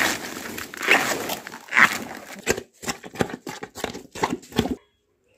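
Broom grass stalks and dry leaves rustling and crackling as they are gathered, three loud swishes about a second apart, followed by a run of short crisp crunching sounds that cuts off suddenly near the end.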